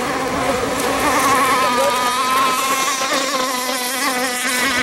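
Radio-controlled model speedboat's engine buzzing at high speed, a steady high whine whose pitch wavers slightly as the boat runs across the water.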